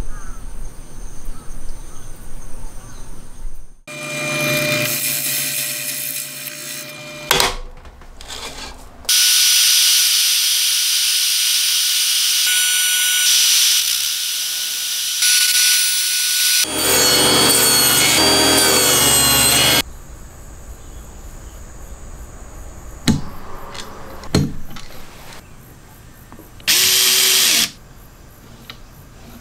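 Makita RT50DZ cordless trim router cutting slots in thin plywood: a loud, high-pitched cutting noise with a steady whistle for about eight seconds, then a few seconds of the motor running on its own before it stops. A shorter power-tool run comes a few seconds earlier, and a one-second burst near the end.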